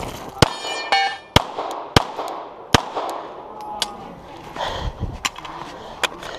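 A string of pistol shots fired in a USPSA course of fire: about six sharp reports at uneven spacing, roughly half a second to a second apart, with a gap of over a second in the middle.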